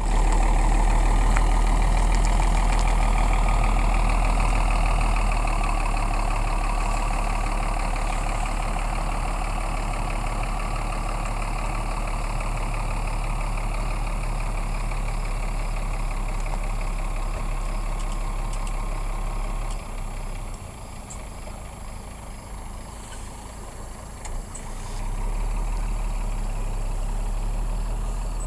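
Heavy recovery truck's diesel engine running steadily under load while towing, with a dip in level for a few seconds around two-thirds of the way through.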